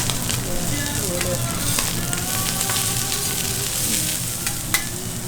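Food sizzling on a hot griddle with a steady hiss, while a metal spatula scrapes and taps the plate in scattered sharp clicks. This is likely garlic rice frying in Kobe beef fat.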